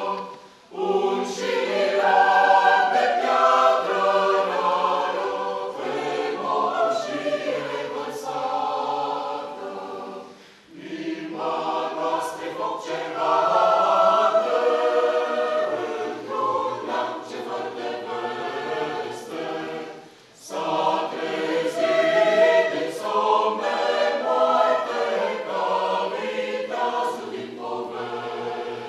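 Mixed choir of men's and women's voices singing in parts. The singing breaks off briefly about half a second in, around ten seconds in and around twenty seconds in, then picks up again.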